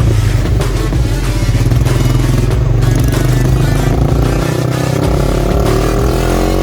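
Motorcycle with an aftermarket exhaust running and being revved, its pitch climbing over the last few seconds, with music mixed in.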